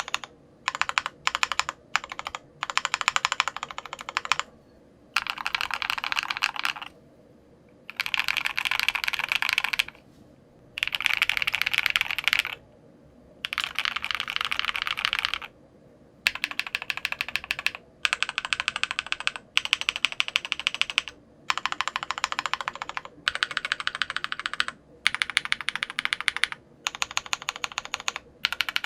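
Typing on a custom Alice-layout mechanical keyboard with lubed SW Vintage linear switches, a polycarbonate plate and clone GMK keycaps. The typing comes in bursts of rapid keystrokes lasting a second or two, with short pauses between.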